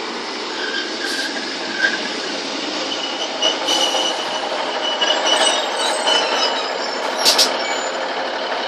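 Class 156 diesel multiple unit running past with a steady rumble and rush of wheels on rail. Thin high wheel squeals come and go through the middle, and there is a sharp knock near the end.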